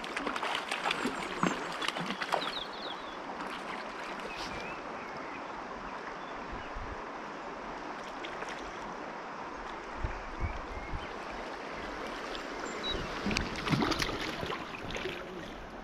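Steady rush of flowing river water around a wading angler, with bouts of splashing in the first two seconds or so and again near the end as a hooked brown trout is brought to the landing net.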